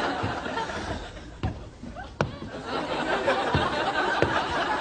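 Studio audience laughing, building up about two and a half seconds in, with a few sharp clicks of forks striking the floor.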